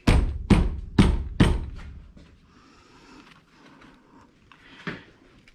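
Four heavy thumps, about two a second, from the fan box of a 1983 Chevy S10 Blazer being beaten on to knock it loose, followed by a softer knock near the end.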